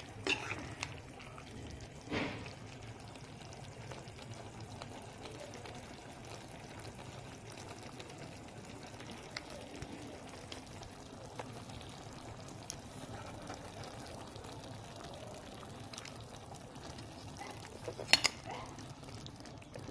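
Mushroom curry sizzling and bubbling in a pan as its sauce cooks down. A metal spatula stirs and knocks against the pan a few times, once about two seconds in and loudest near the end.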